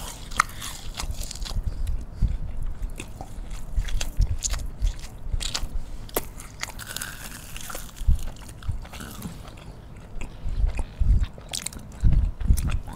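Close-up biting and chewing of fried Indonesian market snacks, sesame-crusted onde-onde among them: wet mouth sounds with many small, sharp crackles and clicks.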